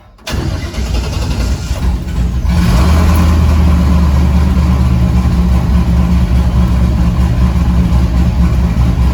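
Destroked 6-litre twin-turbo LS V8 being started: it turns over unevenly for about two seconds, then catches about two and a half seconds in and settles into a steady idle. It is the first start on new spark plugs and plug wires fitted to cure a misfire, and it idles okay.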